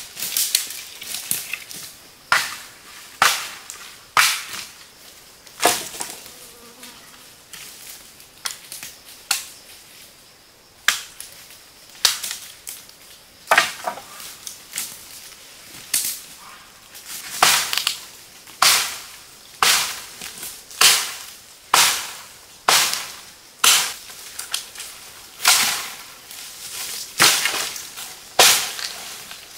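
Repeated sharp chopping strikes with a blade, irregular at first, then settling to a steady rhythm of about one a second from the middle on.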